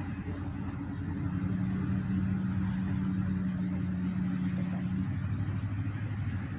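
Steady motor-vehicle noise: a continuous low engine hum over a wash of road traffic, with a steadier tone coming up about a second in and easing off near the end.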